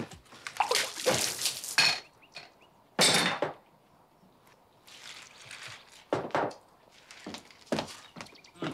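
Things being handled at a kitchen table: a run of scrapes and clatters, a loud thunk about three seconds in, then scattered softer knocks as someone gets up from the table.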